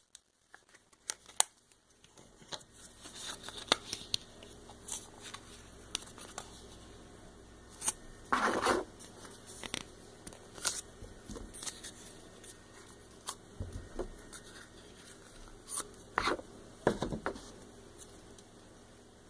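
Play-Doh and plastic molds being handled on a table: scattered light clicks and taps, with louder rustling scrapes about eight seconds in and again around sixteen to seventeen seconds.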